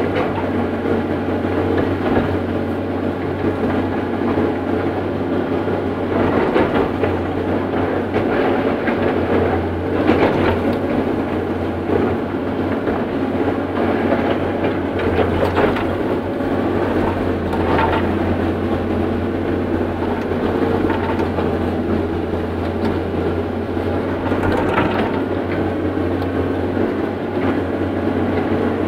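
Caterpillar 318C excavator's diesel engine and hydraulics running steadily at working speed, heard from inside the cab, with a few short knocks and clanks while the machine swings and works its boom.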